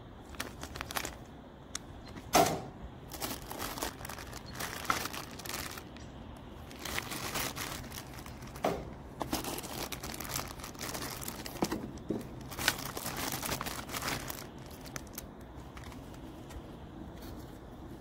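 Clear plastic parts bags crinkling and rustling as they are handled and pulled out of a small cardboard box, in irregular bursts with a few sharper knocks.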